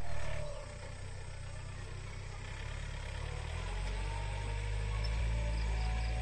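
Tractor engine running steadily while it ploughs the field, a low drone that gets louder a little past halfway through.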